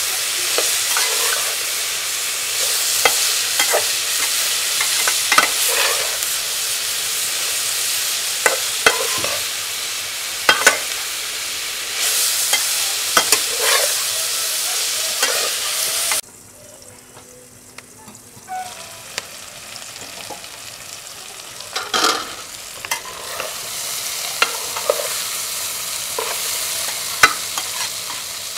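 Vegetables sizzling in oil in an aluminium karahi, with a slotted metal spatula scraping and clacking against the pan as they are stirred. The sizzle drops away suddenly a little past halfway, then slowly builds back.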